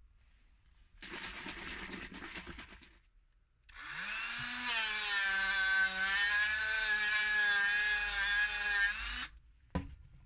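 Power tool motor spinning up with a rising whine, running steadily, then cutting off abruptly, after a shorter, noisier burst of tool work a few seconds earlier. A single sharp click comes right after it stops.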